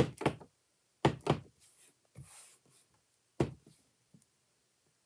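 Rubber stamp on a clear acrylic block knocking down onto an ink pad and card stock: several short thunks near the start, two more about a second in and a single one about three and a half seconds in, with a soft rustle of paper between them.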